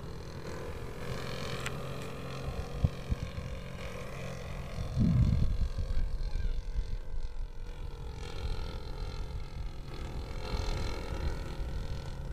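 Evolution 33 two-stroke gasoline engine of a Hanger 9 Super Cub RC plane droning in flight, its pitch slowly drifting as the plane moves across the sky. A louder low rumble comes in about five seconds in.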